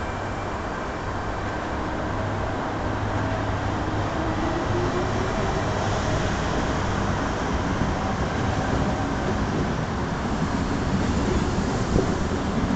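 Sydney Tangara double-deck electric train pulling out of the station and gathering speed past the platform: a steady rumble of wheels and carriages that grows louder, with a faint rising whine as it accelerates. A single sharp click near the end.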